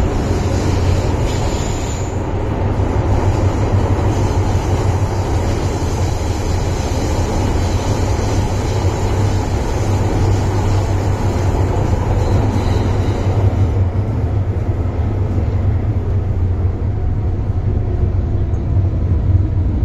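MTR Island Line M-Train (Metro-Cammell CM-Stock) running in the tunnel, heard from inside the car: a loud, steady, thunder-like rumble of motors and wheels on the rails, from an old car with ageing machinery. The higher hiss fades somewhat in the last third.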